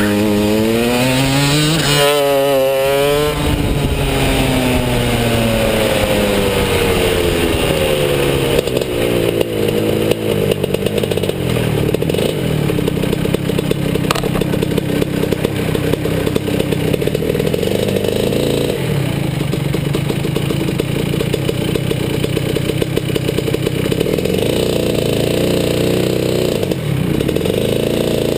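Rotax DD2 shifter kart's 125cc two-stroke single-cylinder engine, heard from the driver's helmet. The revs rise and fall sharply in the first few seconds, then the pitch falls away as the kart slows. It keeps running at low revs with an uneven beat for the rest.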